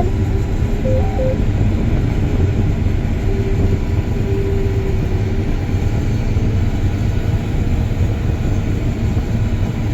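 John Deere combine running hard while harvesting wheat, heard from inside the cab as a steady low-pitched drone.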